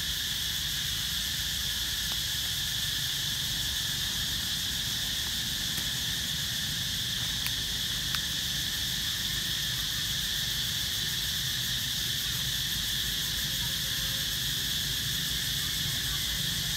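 Steady, unbroken drone of an insect chorus, with a faint tick or two about halfway through.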